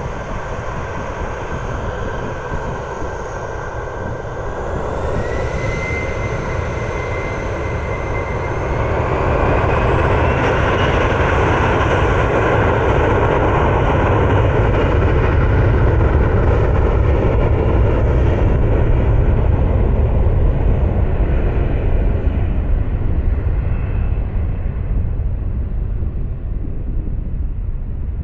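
Airbus A321's twin CFM56 jet engines spooling up to takeoff thrust, with a whine rising in pitch about five seconds in and again around ten seconds. Then comes the steady engine sound of the takeoff roll, loudest in the middle and slowly fading near the end.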